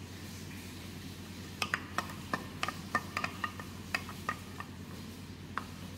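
Finely chopped onion being stirred in hot oil in a pan. A spatula taps and scrapes against the pan in a run of light, sharp clicks from about a second and a half in.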